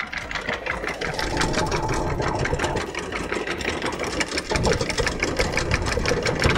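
Electric anchor windlass hauling in anchor chain: a steady motor hum with a rapid, even clatter of chain links running over the gypsy as the anchor is raised.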